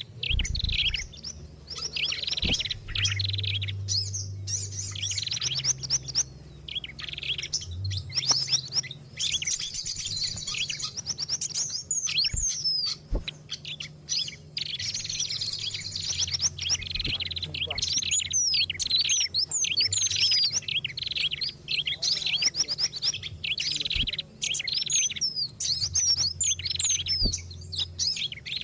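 Several small songbirds chirping and trilling busily without pause, with rapid repeated high phrases and quick chattering runs. This is a mixed bird-lure recording of the kind used to draw wild birds in.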